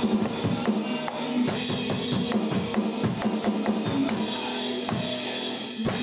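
Drum-kit beat played on an electronic drum kit along with recorded music: a busy run of kick and snare hits over the song.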